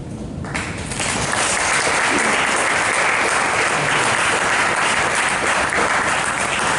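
Audience applauding. The clapping starts sharply about half a second in and builds within a second to a steady level.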